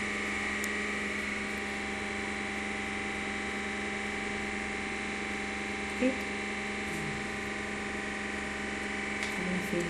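A steady machine hum made of several fixed tones, with one brief short sound about six seconds in and a few faint short sounds near the end.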